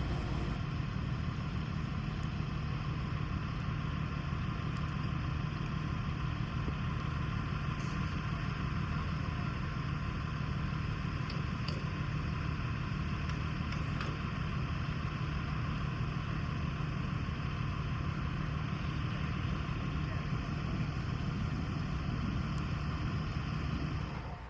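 Diesel locomotive engine idling with a steady, unchanging low hum.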